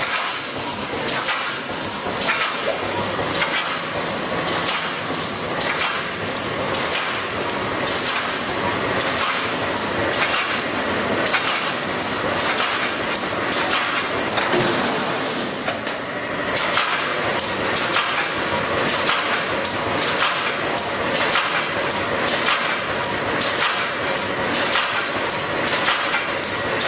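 Automatic reinforcing wire mesh welding machine running. Its welding heads clank down in a steady repeated rhythm over a constant mechanical noise.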